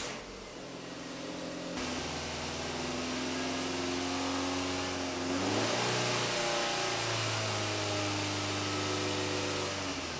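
Skoda Octavia 1U's 1.8-litre four-cylinder petrol engine running on test after a new timing-belt tensioner and water pump were fitted. It runs steadily, is revved up about five and a half seconds in, held at the raised speed, and let back down near the end.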